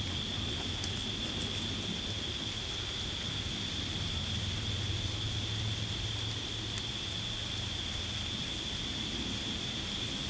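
Steady outdoor evening ambience: an even hiss with a constant high-pitched whine and a low rumble underneath. No distinct chewing or splashing stands out.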